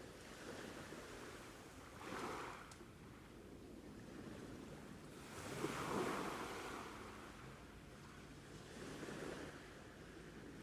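Sea waves breaking and washing onto the shore, swelling three times, the loudest about halfway through.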